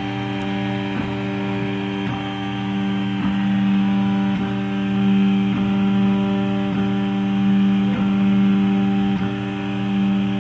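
RepRap MendelMax 3D printer's stepper-driven axes running through a print, a steady pitched hum with a strong low tone and several higher tones over it, swelling a little in level, with a faint tick a little over once a second. The loud part is a Y-axis vibration whose origin the owner cannot pin down: not the Y carriage, and not obviously the Y motor itself.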